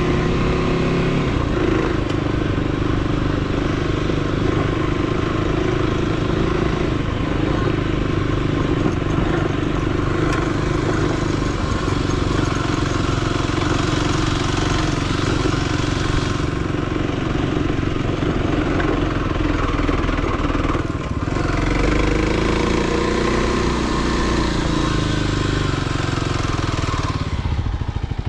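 Motorcycle engine running steadily while riding off-road. The engine pitch dips and swells about three-quarters of the way through, and the engine eases off near the end.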